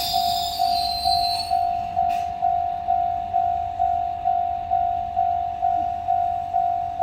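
Japanese level-crossing warning bell ringing in a steady electronic clang, about two strikes a second. Beneath it a train rumbles low, and a high metallic squeal fades out in the first second and a half.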